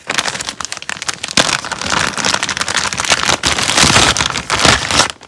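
Clear plastic bag crinkling and crackling as gloved hands handle it and draw out a tool, a dense run of crackles that grows louder after about two seconds.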